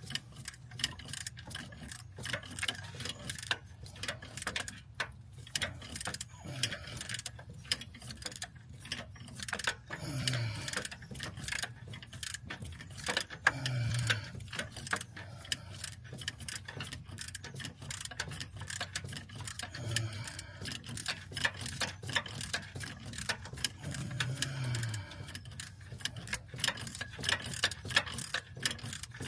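Hand ratchet clicking rapidly and continuously as a fastener is worked, over a faint steady hum.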